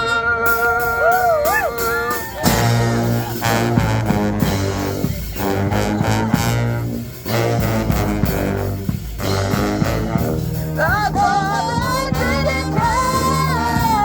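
A live brass band playing. A long held note bends at its end, and about two and a half seconds in the full band comes in with a strong bass line and a steady beat. A wavering lead melody rises over the band near the end.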